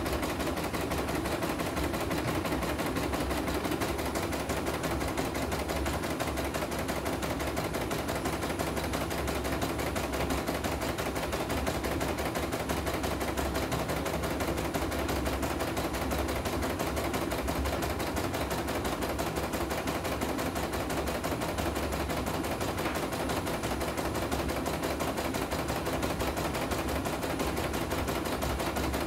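CNY E900 computerized embroidery machine stitching at speed, a rapid, even run of needle strokes as the hoop moves the fabric. It is a test run after repair, with its power supply, rotary hook and bobbin case replaced, and it keeps going smoothly without a stop.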